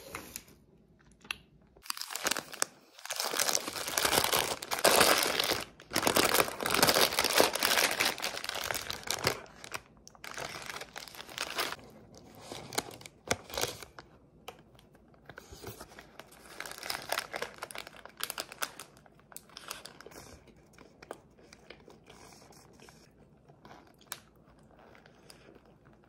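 Paper burger wrapper crinkling and tearing as it is unwrapped and handled. It is loudest and most continuous for several seconds early on, then breaks into scattered rustles that fade out.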